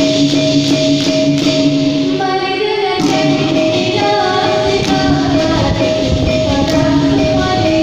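Dikir barat music: a girl singing the lead into a microphone over hand percussion, with a climbing run of notes about two seconds in.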